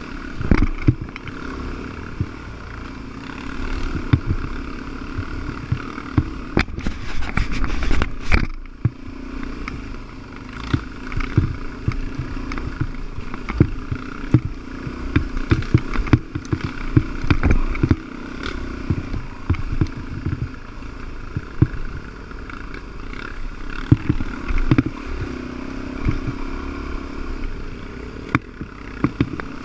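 Dirt bike engine running at a steady trail pace, with frequent knocks and clatter from the bike jolting over the rough, rocky trail.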